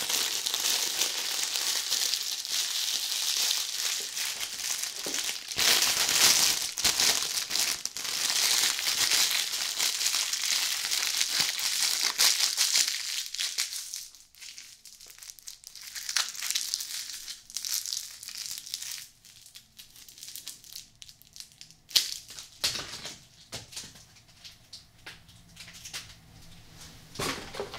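Clear plastic bag crinkling as it is handled around a small zippered carrying case: dense, bright crinkling for roughly the first half. It then drops to soft scattered rustles and clicks, with one sharp click about two-thirds of the way through.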